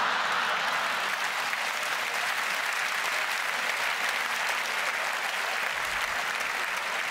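A large theatre audience applauding steadily, many hands clapping at once, at the end of a comedy sketch.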